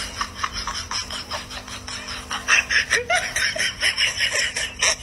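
A person laughing: a quick run of short, repeated laughs.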